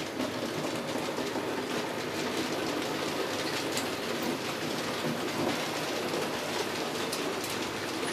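Märklin HO-scale model trains running on the layout's track: a steady rolling rattle of small metal wheels over rail joints and points.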